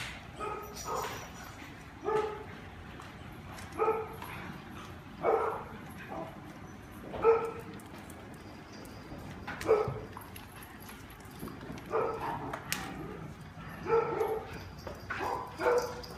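A dog barking in single short barks, about ten of them, spaced irregularly a second or two apart.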